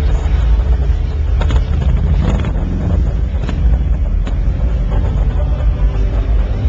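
Loud, boomy low rumble of a crowded indoor show hall, with a few short knocks through it.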